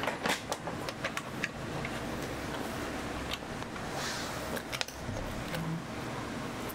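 Small plastic toy parts clicking and tapping as they are handled and pressed onto a plastic toy house, with a brief rustle about four seconds in, over a steady low background noise.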